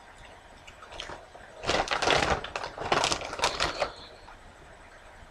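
A person crunching a crisp tortilla chip in the mouth, a dense run of crunches from about two to four seconds in.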